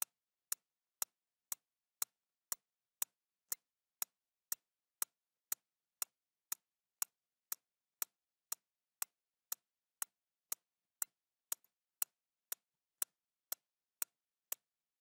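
Steady ticking: sharp, evenly spaced clicks at two a second, each about as loud as the last.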